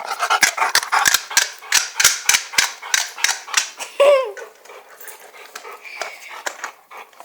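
A rapid series of sharp clicks and taps, about three a second, thinning out after about four seconds, with a short squeaky sound that rises and falls about four seconds in.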